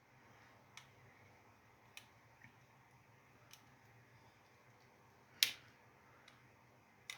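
Scattered small clicks and taps as wires are inserted into the strobe terminals of a Gentex Commander fire alarm horn strobe, with one louder click about five seconds in.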